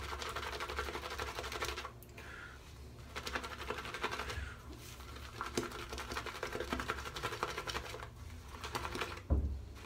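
A large shaving brush is swirled through thick, creamy shaving lather, working in a little extra water. It makes a fast, continuous run of wet ticks and swishes, with brief pauses about two seconds in and near the end.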